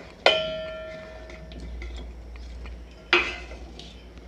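Two clanks of a steel plate against a stainless steel pot as boiled yam pieces are tipped in. The first, about a quarter second in, rings on for about a second; the second, about three seconds in, is shorter.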